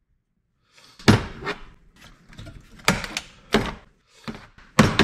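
Pliers working a small stamped-metal bracket, giving sharp metallic clicks and knocks against a wooden workbench: about five separate strikes, the first (about a second in) and the last the loudest.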